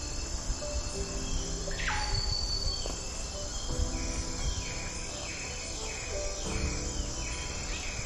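Insects trilling steadily under falling bird calls: one long downward sweep about two seconds in, then a run of shorter falling notes from about four and a half seconds to seven and a half seconds. Soft background music plays underneath.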